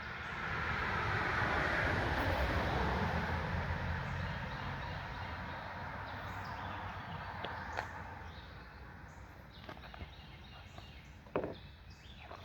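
A passing vehicle: a steady rush of noise that swells and then slowly fades over several seconds, followed by a few faint clicks.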